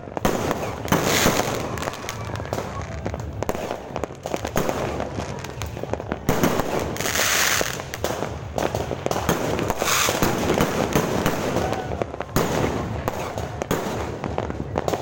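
Fireworks going off in a dense run of cracks and bangs, with louder blasts about a second in, around seven seconds and around ten seconds.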